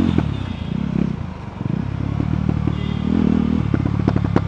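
KTM 390 Duke single-cylinder engine running under throttle, easing off about a second and a half in. A run of sharp crackles and pops follows from the stock exhaust on the overrun.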